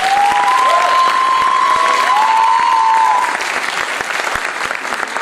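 Theatre audience applauding, with several long, held cheering cries over the clapping for the first three seconds. The applause then carries on a little quieter.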